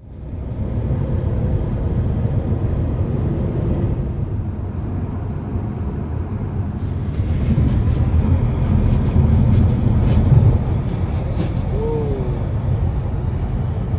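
Wind buffeting and road rumble heard inside a moving car through a wide-open rear window: a steady, loud, low rumble. A brief high squeak sounds near the end.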